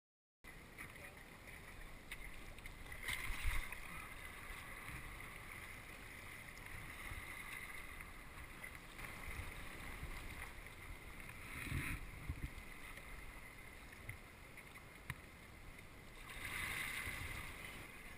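Water noise from a sea kayak under way: steady splashing and swishing of paddle and hull, swelling louder three times. It starts abruptly about half a second in.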